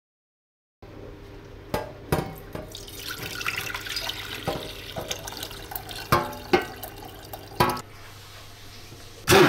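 Cooking juices pouring from a metal baking tray into a steel saucepan, with several sharp clinks of metal against metal. Right at the end a hand blender starts up with a short loud burst.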